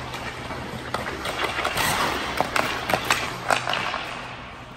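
Hockey skates scraping and carving across the ice, with short sharp clicks of a stick on a puck scattered through, over a steady low hum.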